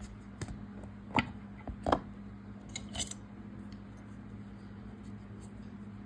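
A few light clicks and taps of plastic being handled in the first three seconds, as a small red plastic glue pot is set down and its lid opened. After that only a faint steady low hum.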